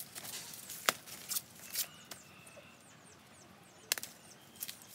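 A large knife chopping into a banana plant's stalk: several sharp strikes at uneven intervals, the loudest about a second in. Birds chirp faintly in the background.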